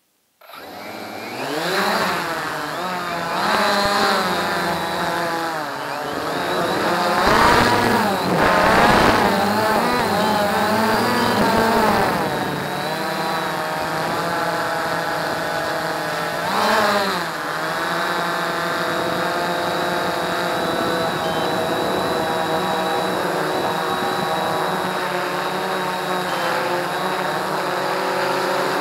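Quantum Nova quadcopter's motors and propellers whirring, recorded by its onboard camera. For the first dozen seconds the pitch keeps rising and falling with throttle, it swells once more briefly a few seconds later, then it holds steady in a hover.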